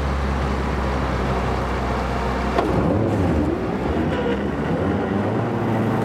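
Diesel engine of a Storti Dobermann SW200 self-propelled feed mixer wagon running steadily. About halfway through there is a click, a brief wavering tone, and then a steady, slightly higher engine note.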